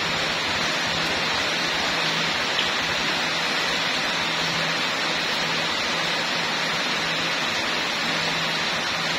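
Steady hiss of rain falling, with a faint low hum that comes and goes underneath.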